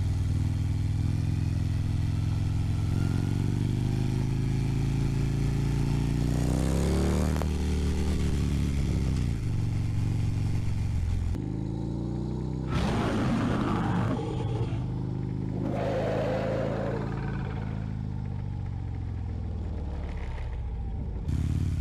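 Harley-Davidson Road Glide CVO's V-twin engine running under way, rising in pitch as it accelerates a few seconds in, then dropping suddenly at a gear change. A louder rushing noise passes briefly around the middle.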